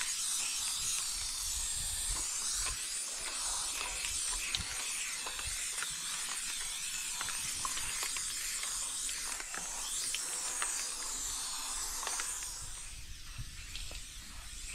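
Aerosol spray-paint can spraying in a long steady hiss, which stops a couple of seconds before the end.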